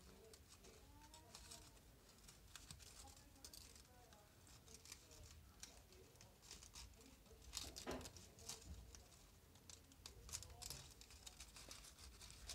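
Faint rustling and crinkling of folded colour paper as origami units are pushed and slotted into one another by hand, with one louder crinkle about eight seconds in.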